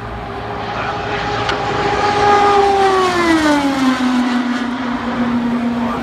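An IndyCar's 2.2-litre twin-turbo V6 passing at speed: a high steady engine note swells, then drops in pitch as the car goes by about three seconds in, and settles on a lower steady note as it pulls away.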